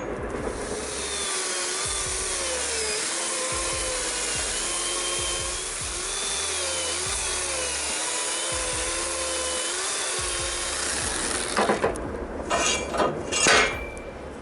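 A power saw running through wood, its whine wavering up and down as the load changes. About twelve seconds in the cutting stops and several irregular knocks follow, like wood pieces striking.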